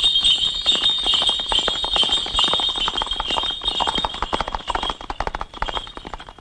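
A horse's hooves beating fast on a dirt road, a ridden horse moving off and getting fainter. A steady high-pitched tone rings over it and fades near the end.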